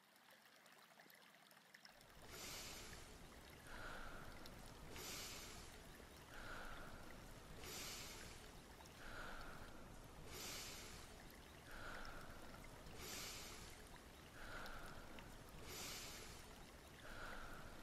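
Slow, regular breathing, in and out about every three seconds, quiet and close. It begins about two seconds in.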